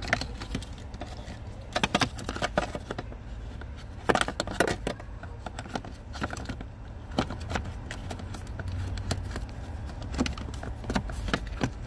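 Plastic clicks, knocks and scrapes as a cabin air filter and its cover are pushed and fitted into the plastic filter housing behind the glove box. The clicks come in clusters, about two seconds in, around four to five seconds in and again near the end, over a steady low hum.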